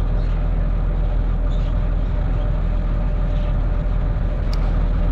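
Amphibious excavator's diesel engine running steadily, with a faint click about four and a half seconds in.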